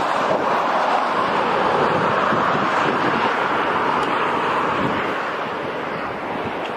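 Steady rush of wind on the microphone mixed with the road noise of a car driving at speed, easing slightly near the end.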